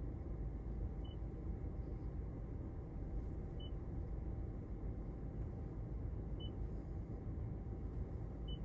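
Toyota RAV4 infotainment touchscreen giving a short high confirmation beep at each tap, four times, over a steady low rumble.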